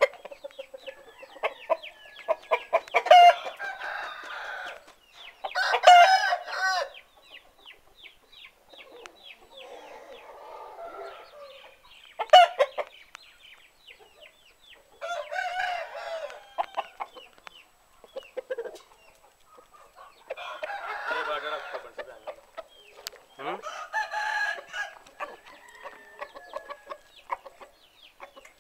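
Chickens: roosters crowing several times, with clucking and short rapid calls between the crows.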